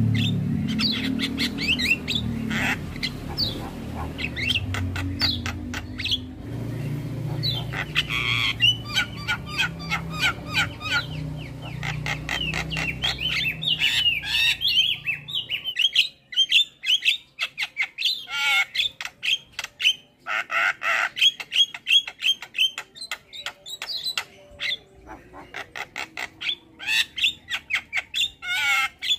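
Starlings and mynas (jalak) giving a fast run of harsh squawks, chattering notes and whistled chirps, several birds calling over one another. A low droning background under the calls stops suddenly about halfway through, leaving the bird calls alone.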